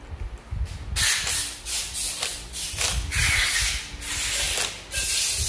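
Cordless impact driver running in several short bursts, starting about a second in, as it tightens the bolts of a timing chain tensioner on a Honda R18 engine.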